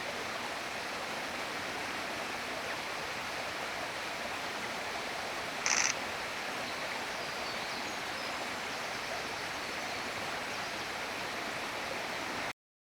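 Steady rushing of a stream. About six seconds in there is one short, sharp bird call, and the sound cuts off suddenly near the end.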